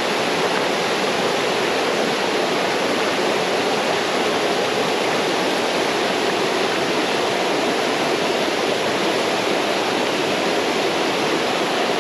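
Mountain stream rushing over rock cascades into a pool: a loud, steady, even rush of water.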